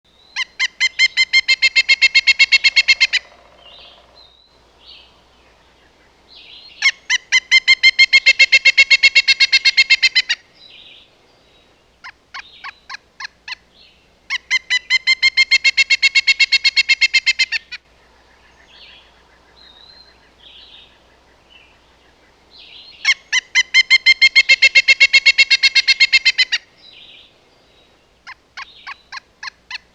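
A woodpecker calling: long, rapid runs of loud, evenly spaced notes, each run about three seconds, four times over, with a few shorter runs of notes and faint softer calls in between. These are voice calls, not drumming on wood.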